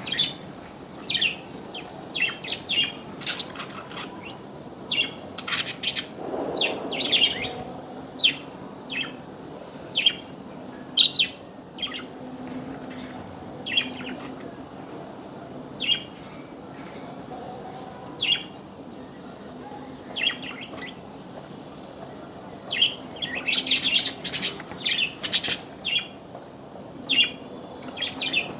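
Small birds chirping: many short, sharp chirps in an irregular scatter, busier for a couple of seconds about a quarter of the way in and again near the end.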